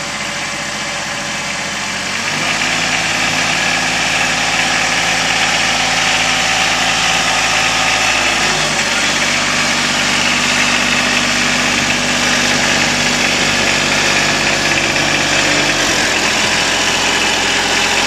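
Kubota compact tractor's diesel engine running at low speed, growing louder about two seconds in, with a shift in its pitch about halfway through and again near the end.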